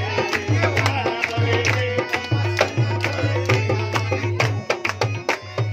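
Live harmonium and hand-drum music: a steady, even beat of drum strokes over sustained harmonium notes.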